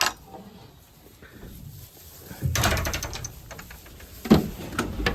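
Mechanical clattering and knocks: a brief rattle of rapid clicks about two and a half seconds in, then a single sharp knock a little after four seconds.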